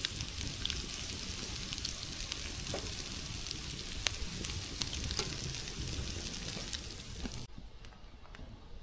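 Food frying in a pan, a steady sizzle dotted with sharp crackles, which cuts off suddenly near the end.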